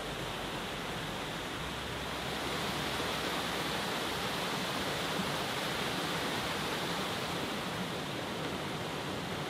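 Mountain creek water rushing steadily over a small cascade, a constant even rush that gets a little louder about two seconds in.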